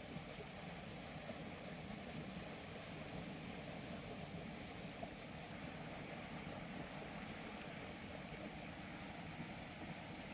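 Steady rushing of fast-flowing water in a narrow concrete-banked canal, churning into white water.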